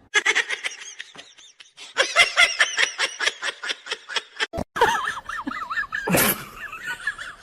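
A person laughing hard in quick repeated bursts. After a sudden cut come a wavering high-pitched call and a loud sharp noise about six seconds in.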